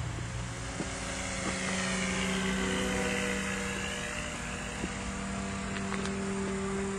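Radio-controlled Hawker Typhoon scale model flying past: a steady drone from its motor and propeller, with a higher whine that rises and then falls in pitch in the middle as the model passes.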